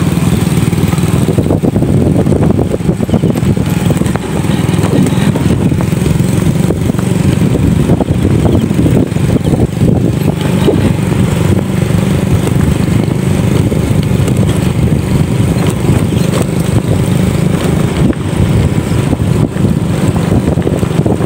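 Motorcycle riding along at a steady pace, heard from on the bike itself: a constant dense rumble of engine and road noise, jostled by many small jolts.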